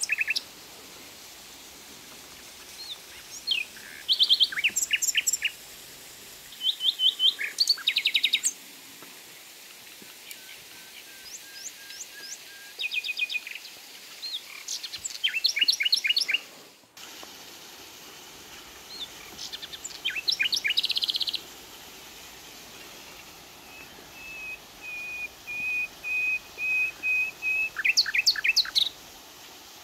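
Woodland songbirds chirping and trilling in short quick bursts every second or two, with a thin held whistling note near the end, over a faint steady hiss.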